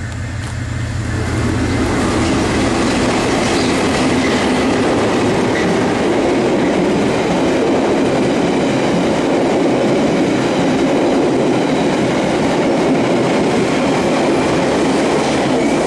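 A KiwiRail DFB-class diesel locomotive passes close with its engine running. Then comes the loud, steady rumble and clatter of the Northern Explorer's passenger carriages rolling past the platform.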